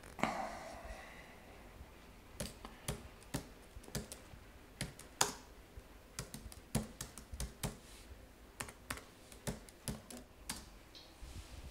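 Laptop keyboard typing: scattered, irregular keystrokes with pauses between them. A short sound with a fading ring comes just as it starts.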